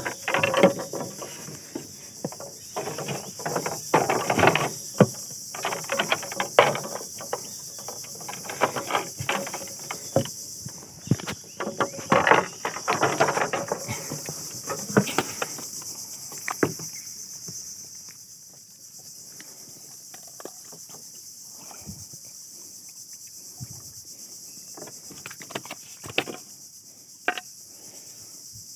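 Steady high-pitched chorus of insects. Irregular knocks and rustling come through for about the first half, then die away.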